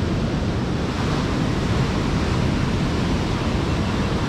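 Ocean surf breaking and washing up the beach, a steady rushing noise, with wind buffeting the microphone as a low rumble.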